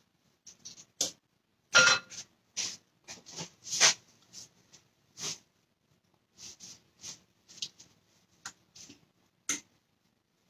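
Paper towel wiping and rubbing across a glass-ceramic cooktop: a string of short, uneven swishes, about a dozen strokes.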